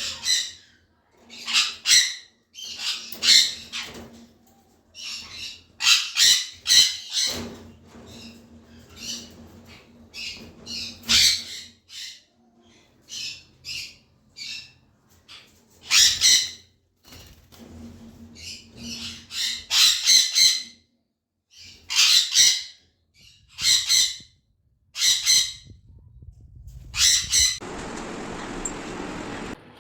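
Pet parrots squawking in repeated short, harsh calls, a burst every second or two, with a rush of rustling noise lasting about two seconds near the end.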